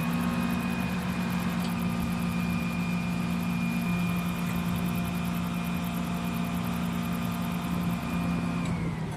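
Fuel tanker truck's pump running at a steady hum while pressure-refuelling a helicopter, with fuel going through the hose at about 55 psi. The hum drops away near the end.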